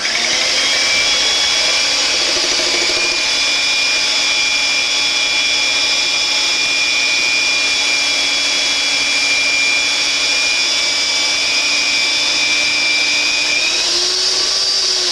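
Electric mixer whipping egg whites toward stiff peaks, its motor running with a steady whine; near the end the pitch rises as the speed goes up.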